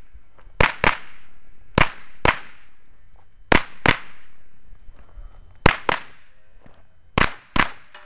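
A 9mm pistol-caliber carbine fires ten shots in five quick pairs, with roughly a second and a half between pairs. These are double taps, two shots per target.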